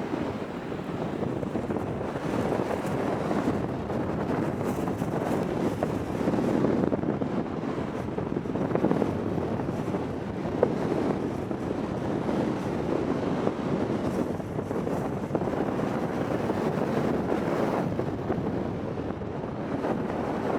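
Wind buffeting the microphone in uneven gusts over a steady wash of sea and waves.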